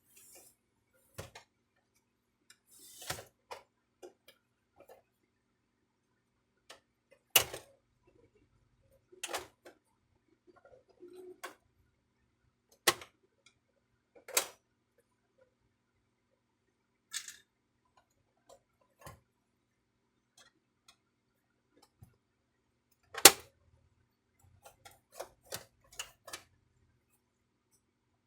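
Scattered sharp clicks and knocks of the plastic casing and parts of a Brother DCP-T820DW-series printer being handled, with pauses between them; the loudest knocks come about a quarter of the way in, near the middle and about four fifths through.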